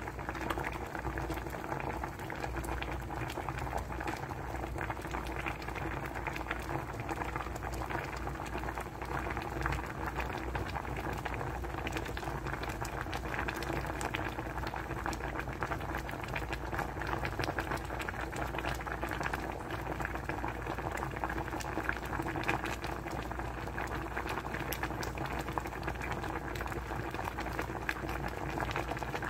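Shrimp and vegetable soup boiling hard in a pot: a steady bubbling with many small pops and crackles.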